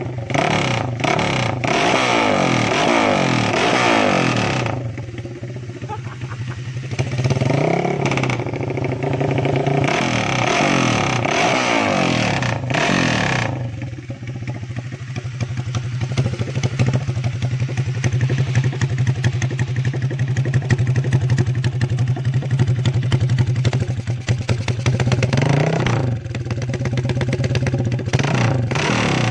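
Honda CB motorcycle engine running with no exhaust muffler, idling steadily and revved up and back down several times.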